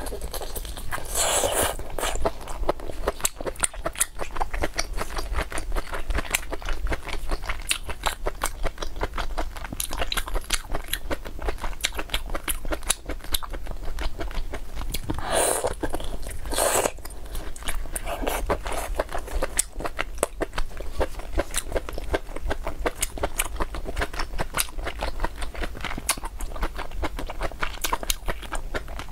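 Close-miked mukbang eating: biting and chewing chewy boneless chicken-feet rings in chili oil, a steady run of small mouth clicks and smacks with a few louder bites.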